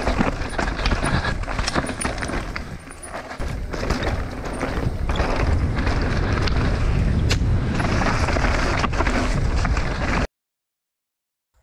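Mountain bike descending a rocky dirt trail, heard from a camera on the bike or rider: tyres crunching over dirt and stones, the bike rattling with many sharp knocks, and wind rumbling on the microphone. The sound cuts off abruptly about ten seconds in.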